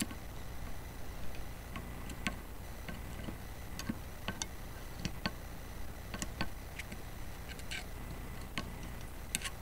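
Light, irregular clicks and taps, about one or two a second, as a flat tool spreads grease onto the rollers and black metal bracket of a van's sliding-door roller assembly. A low steady hum runs underneath.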